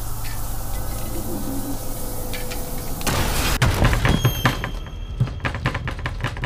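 Film sound design: a low steady drone with faint ticks, then about three seconds in a sudden swell of noise and a rapid, irregular run of clicking knocks and thuds over a high ringing tone.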